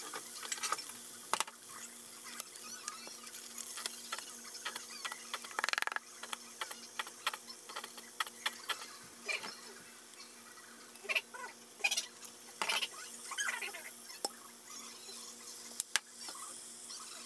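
Pan drippings and oil sizzling in a frying pan, with many sharp crackles and spits as ketchup and sauces are poured into the hot fat.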